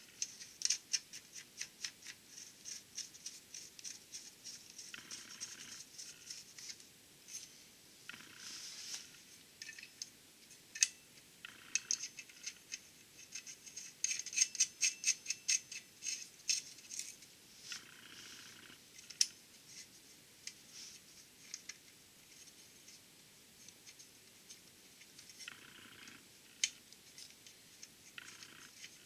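Light metallic clicking and rattling of bolts and locking nuts being fitted and turned by hand on a steel flex plate at the crankshaft hub, in quick runs of ticks with pauses between and a few short scrapes.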